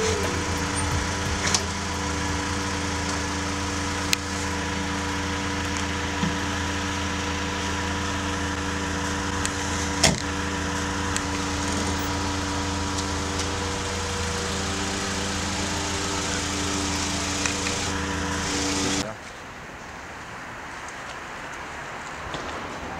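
Car engine idling steadily, with a few sharp knocks, the loudest about ten seconds in. The idle cuts off abruptly about nineteen seconds in, leaving a quieter background hiss.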